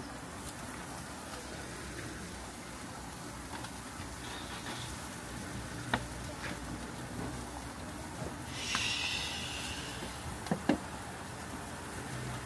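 Yakitori chicken skewers sizzling with a steady hiss on a grill, growing louder for a second or so about two-thirds through. Now and then there are sharp clicks and knocks as skewers and metal trays are handled, the loudest two close together near the end.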